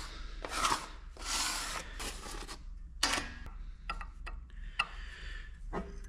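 Bench work on transmission pump parts: several short rubbing, scraping strokes in the first few seconds, then a few light clicks of metal parts or tools being handled.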